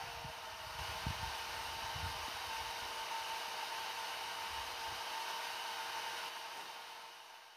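Steady mechanical whirring hiss with a constant hum, with a few low thumps in the first couple of seconds, fading out near the end.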